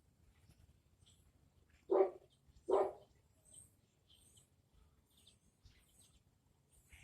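Two short, loud barks about a second apart, with faint high chirps of small birds around them.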